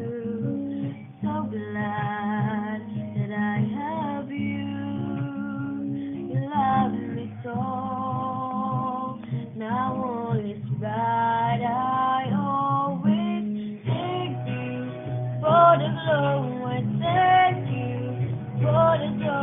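A child singing a slow melody over a strummed guitar accompaniment.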